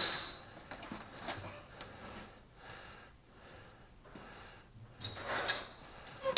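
A man breathing hard close to the microphone, a few heavy breaths. A sharp metal clink at the very start rings briefly.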